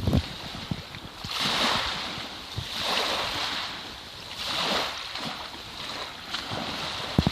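Water swishing in regular surges, about one every one and a half seconds, with wind rumbling on the microphone.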